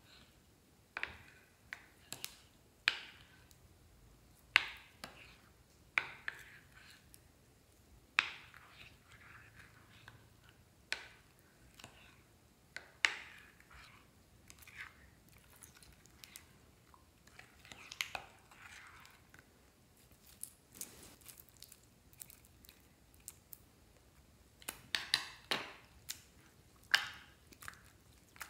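Plastic spoon stirring and folding wet slime in a glass dish: short sticky squelches and pops every second or two, with a quick run of them near the end as the slime is pulled apart by hand.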